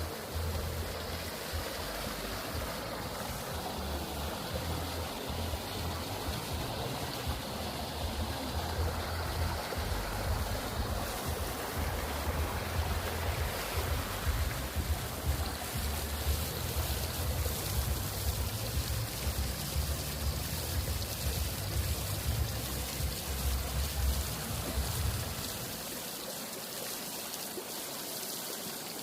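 Flowing water rushing steadily, as from a stream or small cascade. Under it runs a low, unsteady rumble that drops away near the end.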